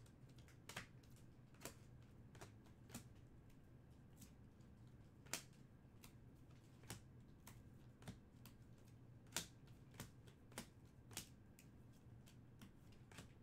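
Faint, irregular clicks and taps of stiff chrome trading cards being handled and flipped through, about a dozen scattered across the stretch, over a low steady hum.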